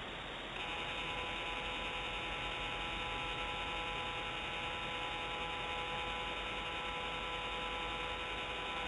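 Pan-tilt motor of a remote nest camera whining while the camera pans: a steady hum of several pitches that starts about half a second in, over a steady hiss.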